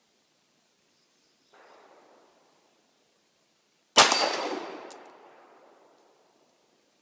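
A single 9mm pistol shot from a Glock 26 about four seconds in, with a long echoing decay, and a metallic ring of a steel target just after it.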